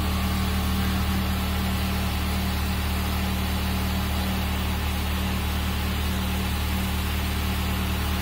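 Chrysler PT Cruiser GT's turbocharged 2.4-litre four-cylinder idling steadily. It is running again after its broken cam gear was replaced, with the valve cover still only loosely fitted.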